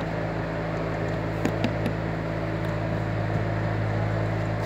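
Steady low electrical hum of running workshop machinery, with a few faint light clicks of the steel bush being handled on the connecting rod about a second and a half in.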